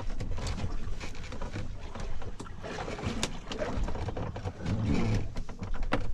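Small boat at sea: a steady wash of water and wind noise with a low rumble, broken by many scattered sharp clicks and knocks.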